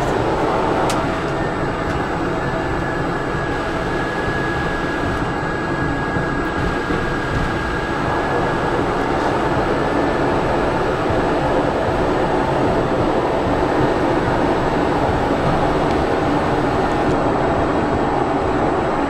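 Steady cabin drone of a Pilatus PC-12's single Pratt & Whitney PT6A turboprop engine and airflow during the departure climb, with a faint high whine over the first half.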